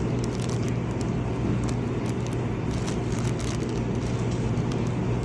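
Household dishwasher running: a steady low hum under an even wash-like hiss.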